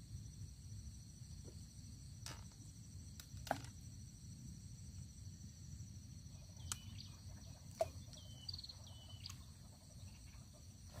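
Faint outdoor ambience with a steady insect chorus. A few sharp light clicks and taps sound as fishing rods are handled and set into a metal rod rack, and several short chirps come about eight seconds in.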